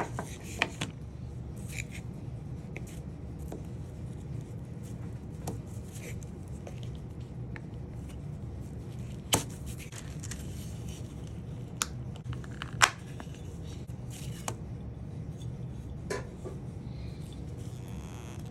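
Scattered light clicks and taps of wooden parts and tools being handled on a workbench, the sharpest about nine and thirteen seconds in, over a steady low hum.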